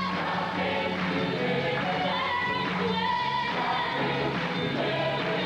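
A large choir singing in held, sustained notes with instrumental accompaniment underneath.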